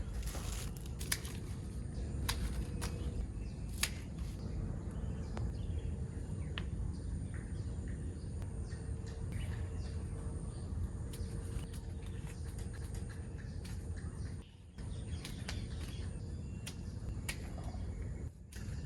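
Outdoor ambience: a steady low rumble with scattered light clicks and a faint steady high-pitched hum, briefly cutting out twice near the end.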